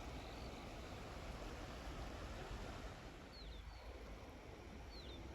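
Steady rush of a flowing creek, with a few faint, short high chirps, some dropping in pitch, about three seconds in and again near the end.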